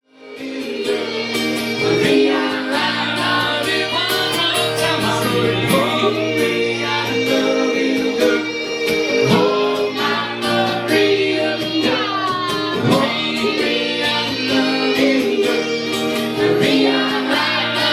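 Music with singing over guitar and a sustained bass line, starting suddenly.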